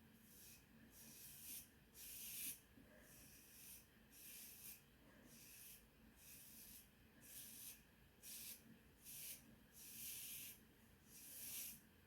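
Safety razor with a Feather Professional AC blade scraping stubble off a lathered scalp in short, faint strokes, about one a second.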